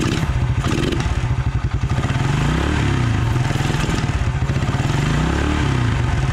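1996 Suzuki King Quad 300's single-cylinder four-stroke engine running on its freshly rebuilt carburetor with the airbox off. It idles, is revved up and back down twice in the middle, then settles back to idle.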